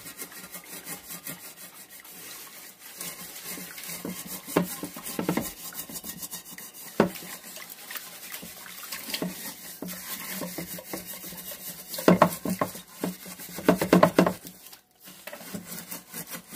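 A Norwex Spirinet scrubbing pad scrubbed rapidly back and forth against the inside of a wet, soapy stainless steel pot, working at stuck-on food residue. The rubbing strokes run on steadily, with two louder spells of harder scrubbing in the last few seconds and a brief pause near the end.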